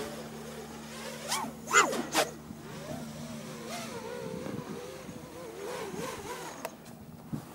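7-inch FPV quadcopter with 2207.5 brushless motors flying, its propellers whining. Two or three sharp throttle bursts come with rising pitch about two seconds in, then the pitch wavers at low throttle. The motors stop near the end.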